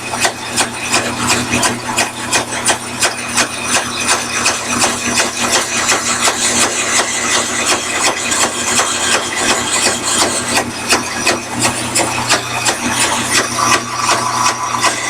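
Bandsaw with a bi-metal blade cutting through aluminum bar stock: a steady motor hum under a fast, even ticking and hiss of the teeth biting. The work is fed without pushing on it.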